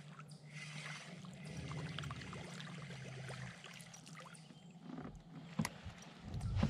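Spinning reel being cranked to retrieve a lure, a steady low whir with small ticks that stops about four and a half seconds in. A sharp click follows about a second later.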